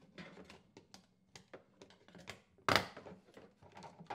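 Irregular plastic clicks and scrapes as the snap-on plastic access cover of an ice machine's control panel is pried loose with a putty knife. About two and a half seconds in there is one much louder sharp snap as the cover comes free.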